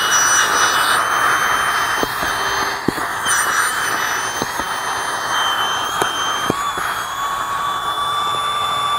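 Small battery-powered electric camping air pump running steadily, blowing air into an inflatable sleeping pad through its valve, a high whine with a rush of air. A few short clicks of the nozzle being handled at the valve, and a second, lower tone joins the whine about seven seconds in.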